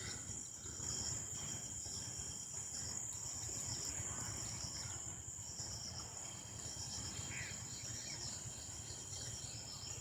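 Insects chirping: a steady high-pitched buzz with a fast pulsing trill just below it, over a low steady rushing noise.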